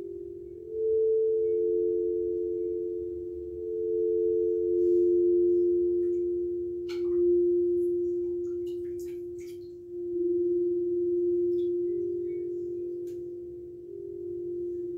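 Tall tuned metal bars on a stand, played by hand, ringing with steady pure tones. A new note swells in about every three seconds and fades slowly beneath the others. A few light clicks come around the middle.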